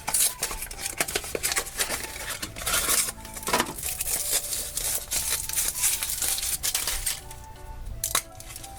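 Foil wrapper of a chocolate surprise egg crinkling and crackling as it is unwrapped by hand, with small clicks and taps, over soft background music.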